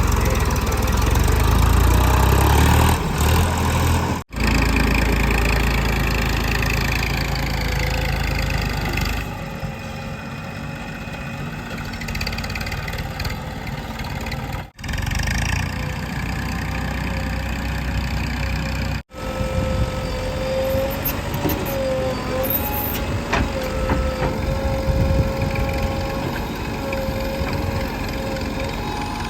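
Heavy diesel engines of construction machinery running steadily, the sound breaking off abruptly three times, about four, fifteen and nineteen seconds in.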